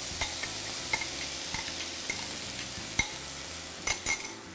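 Yogurt and gram flour batter poured into a hot pan of spiced potatoes, sizzling steadily, with short taps of a spoon against the bowl now and then. The sizzle eases near the end.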